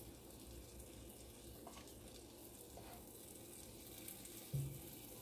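Butter sizzling faintly under a sourdough grilled cheese sandwich frying in a nonstick pan, with scattered light crackles. A short low hum sounds once near the end.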